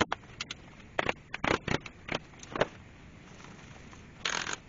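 Metal hand tools clicking and knocking against a Series 1 Land Rover steering box as it is dismantled: a quick run of sharp clinks in the first three seconds, then a short scrape near the end.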